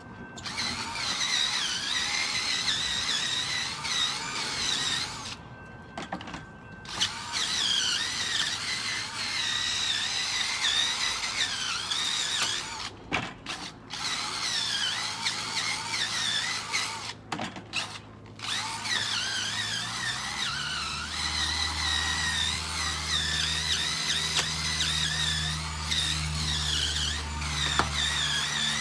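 Cordless drill spinning a brush against a tyre and wheel rim, its motor whine wavering as the brush loads and unloads. It stops briefly three times. A low steady hum joins in about two-thirds of the way through.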